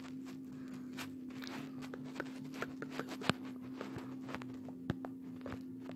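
Faint room tone with a steady low hum and scattered small clicks and taps, the sharpest a little over three seconds in and near five seconds.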